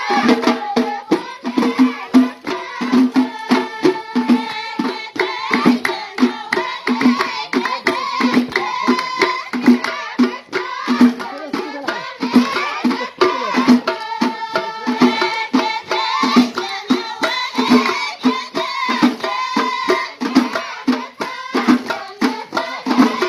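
Amazigh ahwach music: hand-held frame drums beaten in a steady rhythm, about two strokes a second, with voices singing over them.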